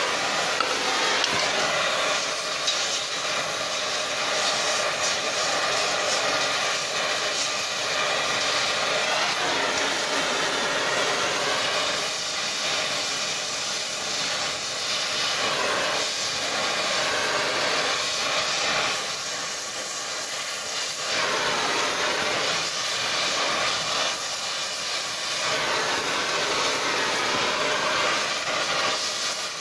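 Oxy-fuel cutting torch flame hissing steadily as it heats a wrapped steel collar to glowing. The hiss swells and eases a few times as the torch is moved.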